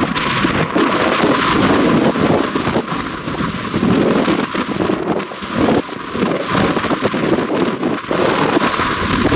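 Wind buffeting the microphone: a loud, continuous rushing noise with crackling gusts.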